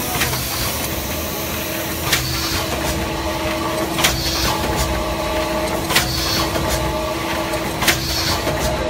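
LX3122 trim-in-place thermoforming machine cycling on 0.2 mm PET trays at about 30 cycles a minute. A sharp clack comes about every two seconds as the forming and steel-rule-knife cutting station closes, five in all, each followed by a short hiss. A steady machine hum runs underneath.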